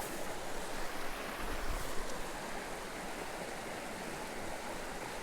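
Small mountain creek running: a steady, even rush of flowing water.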